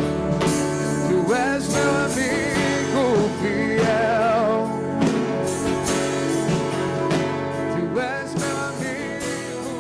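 Live church worship music: a band holds chords with guitar while a singer's voice wavers above in long sung notes. The music eases slightly in loudness near the end.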